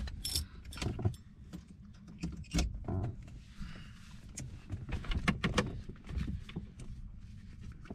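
Irregular light clicks and rattles, like small objects being handled, over a steady low rumble.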